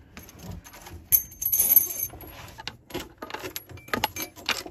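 Small metal clinks and clicks with scraping and rubbing, as a faucet mounting washer and nut are slid up a braided hose and the nut is threaded on by hand. A scraping stretch comes about a second in, and scattered clicks follow.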